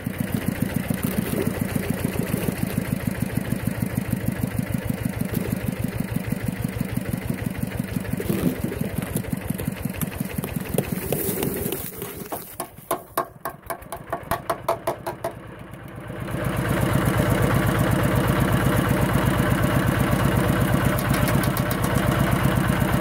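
Kubota single-cylinder diesel engine of a two-wheel walking tractor running with a steady beat. About twelve seconds in it drops to a slow idle with separate, spaced beats for a few seconds, then picks up again and runs louder and steady.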